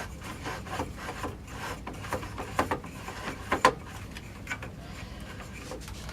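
Rifle parts and tools handled on a workbench: scattered knocks, clicks and rubbing, with two sharper knocks about two and a half and three and a half seconds in.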